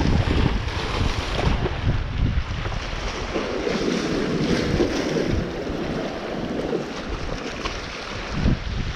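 Wind buffeting the microphone in gusts over a steady wash of waves.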